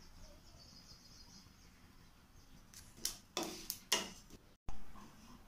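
Wooden spatula stirring seeds dry-roasting in a nonstick frying pan: a few short scraping strokes about three seconds in, after a faint hiss.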